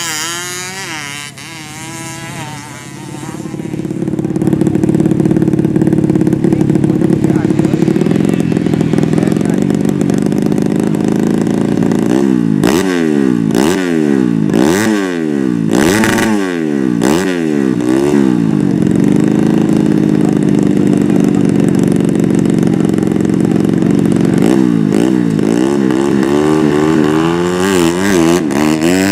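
Grasstrack underbone motorcycle engine revved hard on the spot: held at a steady high rev, then blipped up and down quickly several times about halfway through, and again near the end.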